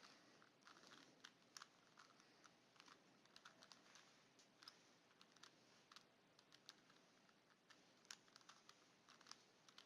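Faint, irregular plastic clicks of a Rubik's Cube's layers being twisted by hand, several a second.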